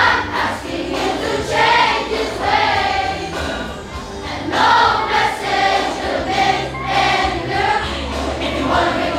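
A choir singing a song together, over accompaniment with steady held bass notes.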